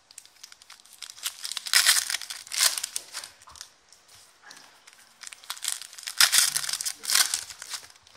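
Foil trading-card pack wrappers crinkling and tearing as packs are handled and opened by hand, in irregular bursts, loudest about two seconds in and again around six to seven seconds in.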